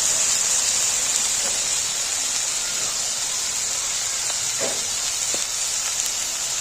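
Food sizzling steadily as it fries in hot oil, a continuous high hiss with a couple of faint clicks in the second half.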